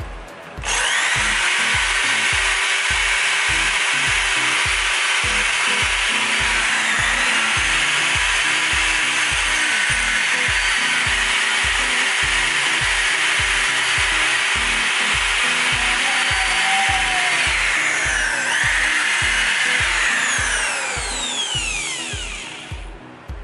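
Corded electric drill spinning a wire brush against a rusty steel bracket: a steady, harsh scraping that starts about a second in and winds down near the end. Background music with a steady low beat runs underneath.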